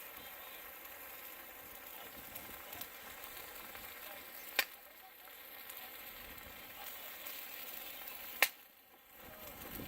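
Campfire burning with a steady crackling hiss, and two sharp pops from the burning wood, about halfway through and near the end.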